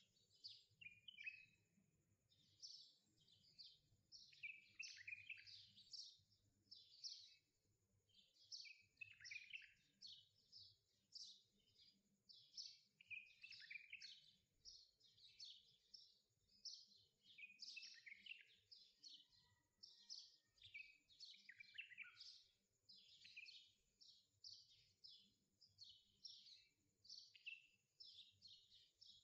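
Many small birds chirping in a dense, continuous chorus of quick, high chirps, faint, with a thin steady high tone behind them.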